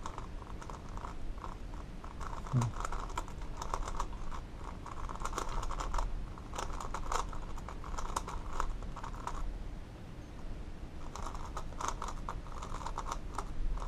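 Plastic clicking and clacking of a new Qiyi X-Man Galaxy Megaminx V2 being turned by hand in rapid runs, with a short pause in the turning near the end. The turning is smooth, without the sandy feel of the version 1.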